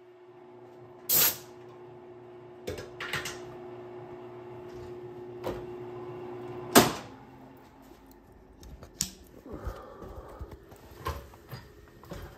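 Knocks and clunks of handling at a metal lathe over a faint steady motor hum. The hum stops with a loud clunk about seven seconds in, and light scattered clicks and taps follow.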